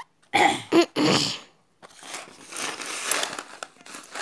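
Plastic bingo tokens being stirred and shaken by hand, a dry rattling rustle lasting a couple of seconds, after two short vocal sounds near the start.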